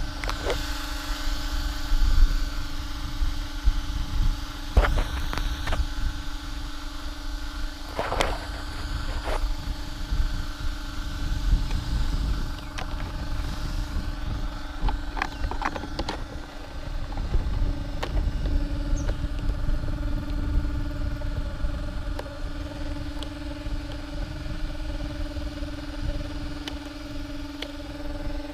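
Wind buffeting the microphone in gusts, over a steady low hum, with scattered clicks and knocks.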